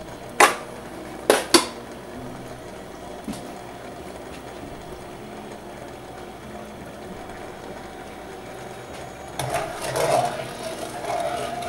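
Three sharp clinks of a utensil against cookware in the first couple of seconds, over the steady low noise of chicken-broth sauce heating in a nonstick pan. Near the end a plastic slotted spatula starts stirring the sauce, swishing through the liquid and scraping the pan.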